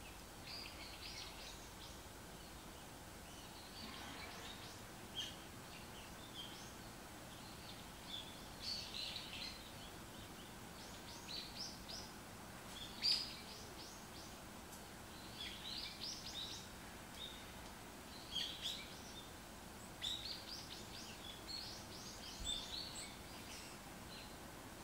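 Small songbirds giving short, high chirps in scattered clusters every second or two over a steady faint hiss of background noise, with the loudest chirps about thirteen seconds in.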